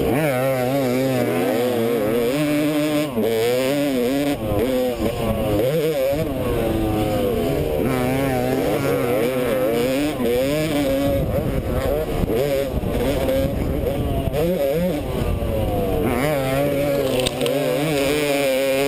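Dirt bike engine revving hard on a motocross track, its pitch climbing and dropping again and again through gear changes and throttle on and off, heard close up from a helmet-mounted camera.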